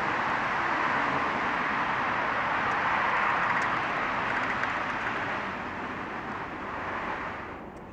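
Steady rushing background noise that fades from about five seconds in and drops away sharply just before the end.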